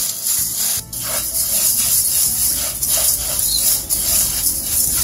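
Raw rice grains being stirred with a spatula in a dry non-stick pan, dry-toasting until crisp: a steady scraping and rustling of grains against the pan in repeated strokes.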